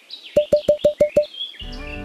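Birds chirping in the background. About a third of a second in, six short, evenly spaced pops follow each other quickly, about seven a second, and music starts just before the end.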